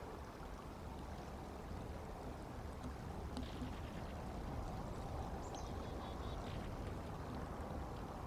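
Steady outdoor background rumble and hiss, with faint high chirps about three and a half and six seconds in.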